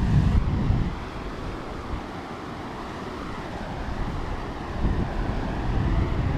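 River rapids rushing steadily over rocks, with wind buffeting the microphone for the first second and again near the end.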